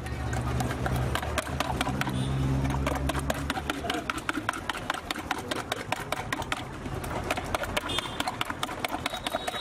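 Juice being mixed by hand in a plastic jug: a quick, continuous run of scraping clicks. A low engine hum runs underneath for the first three and a half seconds.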